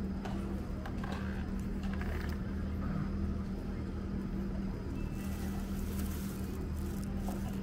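A steady low engine hum with a constant drone that holds unchanged throughout, under faint scattered voices from the crowd.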